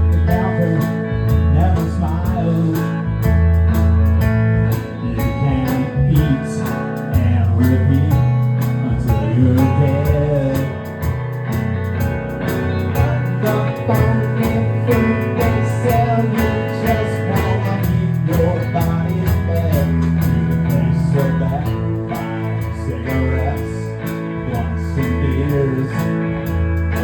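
A small live band playing an instrumental break in a country-blues style: guitar over a bass line, with a lead line bending in pitch and a steady ticking beat.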